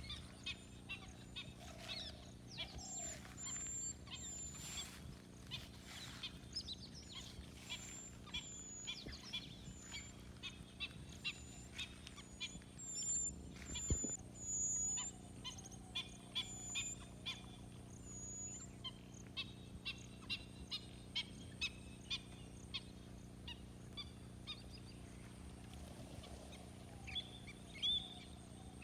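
Several birds calling and chirping, with bursts of rapid high-pitched whistles and short repeated chirps, over a steady low hum.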